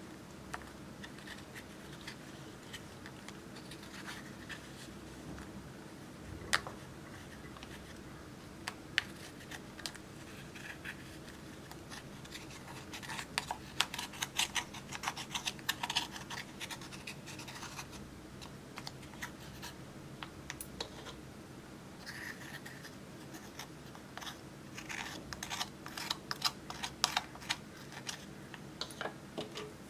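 A pointed metal tool scraping and chipping pressed eyeshadow powder out of its plastic compact: fine scratching with small clicks, coming in busier spells about halfway through and again near the end.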